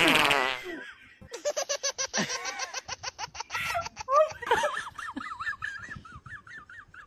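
High-pitched laughter. It starts loud and wavering, goes into a fast run of ha-ha pulses, about ten a second, and ends in a high, warbling giggle.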